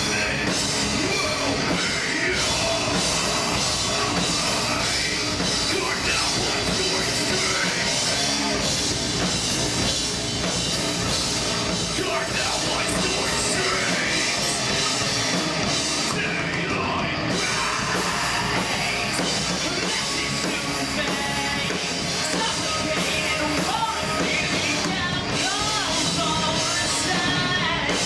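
Live heavy metal band playing: distorted electric guitars, bass guitar and a Premier drum kit, with a vocalist singing and shouting into the microphone.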